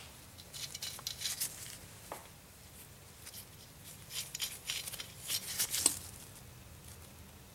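Small metal retainer clips scraping and clicking as they are worked off the threaded wheel studs of a rear brake drum, in two bursts of short, sharp scrapes.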